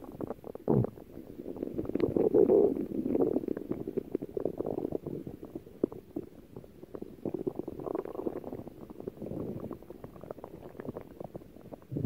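A stomach growling and gurgling in irregular rumbles that swell and fade. The loudest rumble comes about two to three seconds in.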